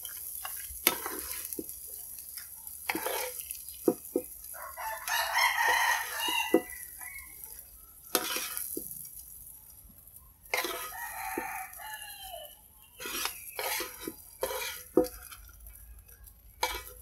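A metal spatula scrapes and clinks against a frying pan and a plate as fried tofu and mushrooms are scooped out. A rooster crows about five seconds in, and calls again around eleven seconds.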